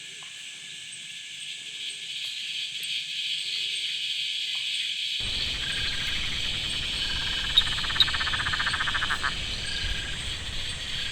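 A chorus of Australian frogs calling at dusk, with a steady high trilling din. About five seconds in, a low rumbling noise starts abruptly. Between about seven and nine seconds one frog gives a rapid pulsing call.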